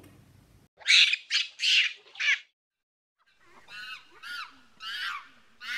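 Recorded monkey calls: four loud, high shrieks in quick succession, then a pause of about a second, then a run of shorter calls that slide up and down in pitch.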